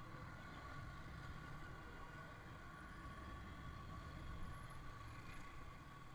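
Yamaha R15 V3's 155 cc single-cylinder engine running steadily at low speed: a constant low rumble with a faint steady whine above it.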